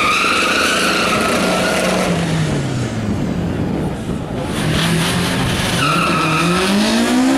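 Car engine revving with its tires spinning and squealing on tarmac. The squeal comes at the start and again about six seconds in, while the engine's pitch drops and then climbs back up.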